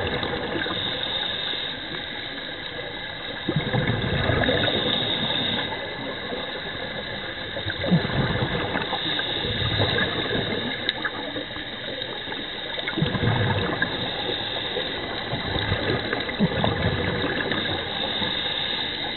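Scuba diver's regulator breathing underwater. A high hiss on each inhale alternates with a low bubbling rush of exhaled air, one breath about every four seconds.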